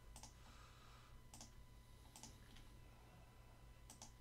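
Near silence with about five faint, unevenly spaced computer mouse clicks over a low steady electrical hum.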